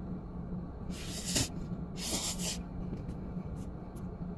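A person slurping jjapaguri noodles, twice in half-second pulls about a second apart, then chewing with a few faint wet smacks.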